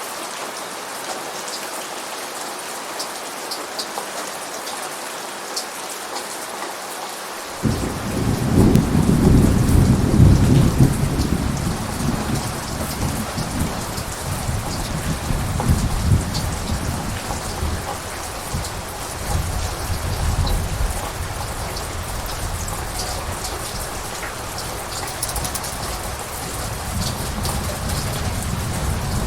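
Steady rain falling, with scattered drips. About a quarter of the way in, thunder breaks in suddenly as a low rumble, loudest over its first few seconds, then rolls on and swells again near the end.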